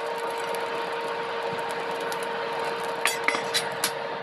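Forge fire under a forced-air blast: a steady rushing noise with a steady hum, dotted with light crackles and a few sharper clicks about three seconds in.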